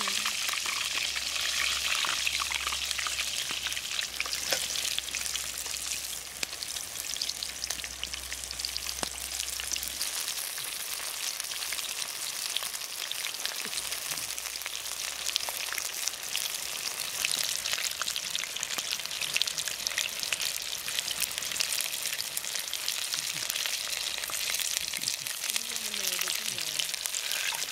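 Chicken pieces deep-frying in hot oil in a kadai, a steady, dense sizzle full of fine crackles.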